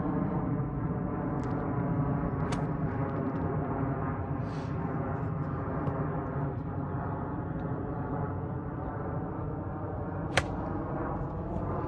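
A golf club striking the ball once near the end, a single sharp crack, over a steady hum.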